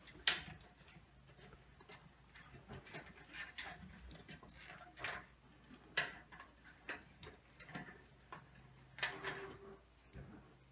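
Irregular small clicks and taps of fixture parts being handled during a fluorescent light ballast replacement, with one sharp click near the start being the loudest.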